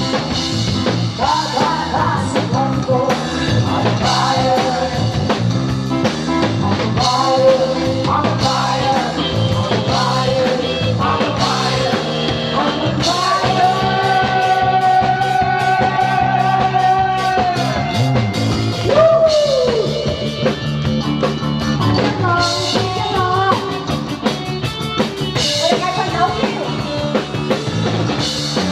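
Rock song sung into a microphone over drums and guitar. About halfway through, the singer holds one long note for several seconds, then slides down.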